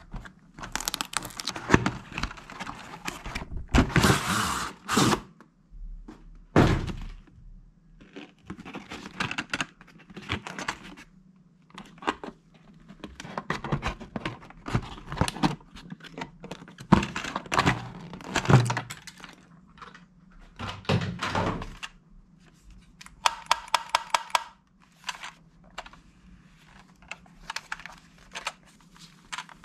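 Cardboard box and packaging handled while a plastic toy gun is unboxed: irregular knocks, scrapes and rustles of cardboard and hard plastic, with a quick run of rapid clicks about three-quarters of the way through.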